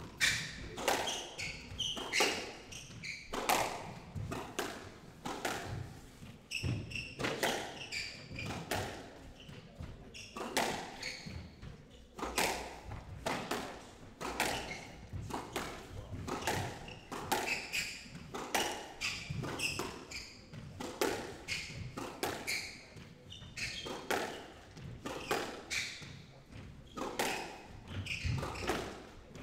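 Squash rally: the hollow rubber ball cracking off racket strings, the front wall and the floor in a quick irregular run of sharp impacts, about one or two a second, echoing in the enclosed court.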